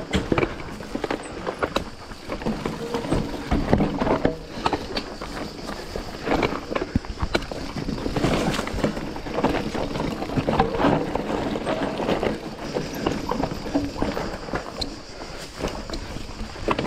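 Mountain bike clattering over a rocky trail on a descent: a continuous, irregular rattle and knocking from the bike and tyres hitting rocks.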